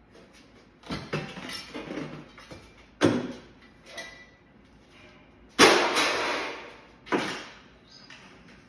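Metal clanking and knocking as scrap air-conditioner parts are handled: four sharp hits with some clatter after the first. The loudest, about five and a half seconds in, rings on for about a second.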